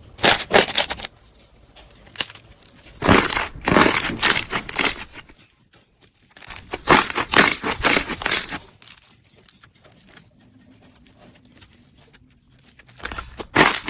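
Slime being worked by hand, giving four bursts of crackly, crinkling squishes with quieter pauses between.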